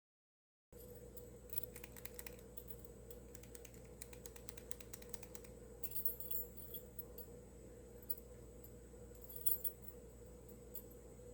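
Lock picking: light metallic clicks and clinks of a pick and tension wrench working inside a lock, with a few louder clinks about six and nine and a half seconds in, over a faint steady hum.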